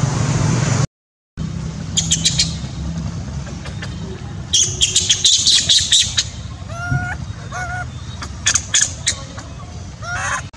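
Sound cuts out briefly about a second in. Then comes a run of short, high, bird-like calls and chirps: a rapid cluster in the middle, then a few calls that bend in pitch.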